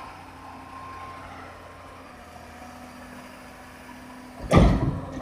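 PQRS sleeper-handling gantry machine running steadily with a low mechanical hum as it travels along the wagons with its load of concrete sleepers. A loud, brief burst of noise comes about four and a half seconds in.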